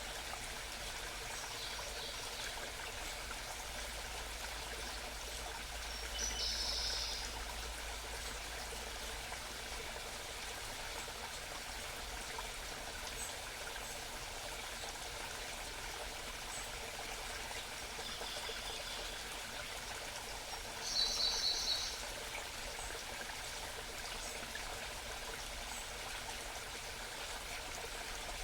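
A small mountain stream babbling steadily, with a wild songbird giving short, high calls four times, loudest about six seconds in and again about twenty-one seconds in.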